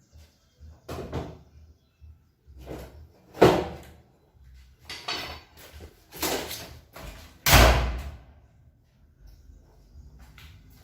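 A door being lifted back onto its removable 4-inch hinges: about six separate knocks and bangs, the heaviest and deepest one about seven and a half seconds in.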